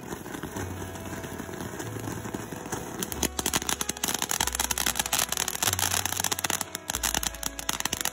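Fireworks crackling: a dense, rapid run of sharp pops starts about three seconds in and keeps going, over background music with a low bass line.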